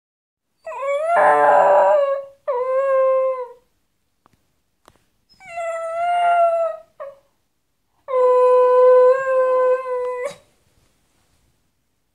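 A pet dog howling, four long howls held fairly level in pitch with short pauses between them. It is separation howling, set off by its companion dog leaving the house.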